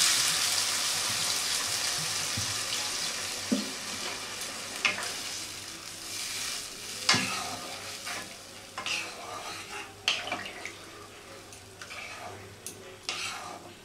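A sizzling hiss from a hot kadai just after water is poured onto the fried spices and vegetables, dying down over the first several seconds as the curry starts to simmer. A wooden spatula stirs through it, with scattered scrapes and knocks against the pan.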